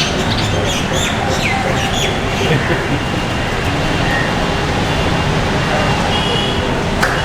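Rose-ringed parakeets giving short, falling screeches over steady traffic noise. The calls come several times in the first couple of seconds, then thin out.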